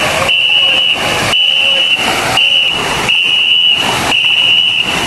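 Crew of a ngo longboat paddling in unison, the paddles splashing into the water about once a second. A shrill, steady high tone sounds in the same beat between the strokes, pacing the paddlers.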